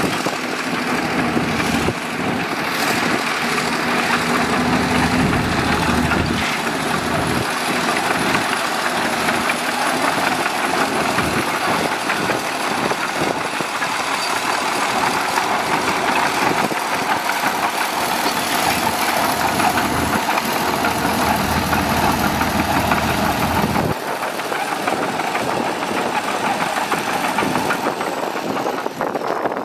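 Diesel engine of heavy earthmoving equipment running steadily with a dense mechanical clatter. About 24 seconds in, the deep low rumble drops away while the rest of the engine noise continues.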